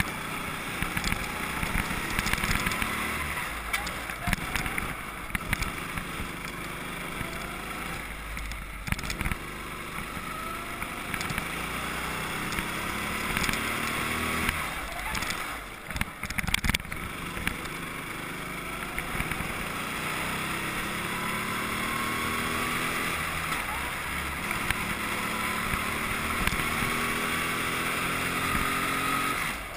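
Go-kart engine heard from on board, its pitch climbing over and over as it accelerates and falling back between climbs. About halfway through it briefly drops away and there are a few sharp knocks.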